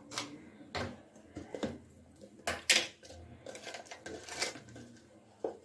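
Scattered light clicks and knocks of kitchen items being handled on the counter, about half a dozen irregular taps.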